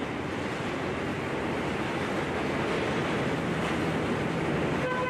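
Steady rushing wind and sea noise across an open ship's deck, with a brief faint pitched tone near the end.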